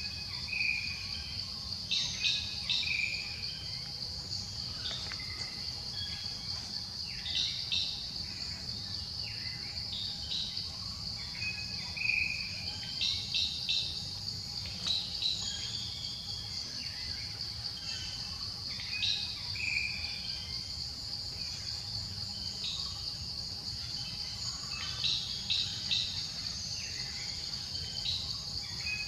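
Insects trilling in a steady, high-pitched drone, with short bird chirps breaking in every few seconds.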